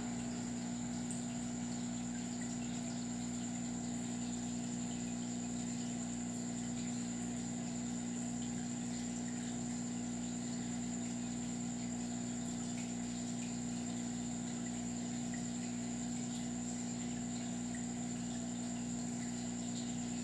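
Aquarium pump humming steadily, with a low hum and the rush of circulating water over a thin, steady high whine.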